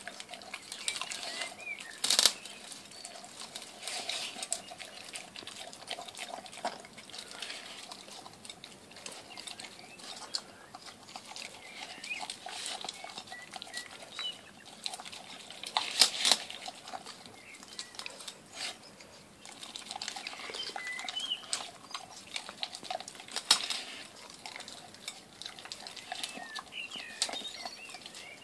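Dog eating a chopped meat mix from a glass dish: wet chewing and licking, with teeth and muzzle clicking against the glass and a few louder knocks, the loudest about two seconds in and again midway.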